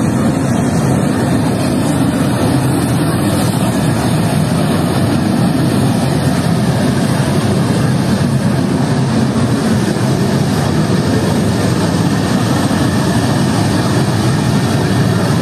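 Steady jet roar from the SOLOTÜRK F-16 flying its display overhead, heard from a distance, with more hiss coming in about halfway through.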